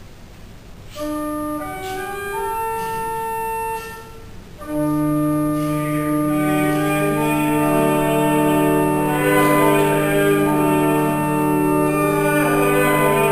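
Church organ playing: a short phrase of held notes starting about a second in, a brief break, then fuller sustained chords over a held bass note from about five seconds in.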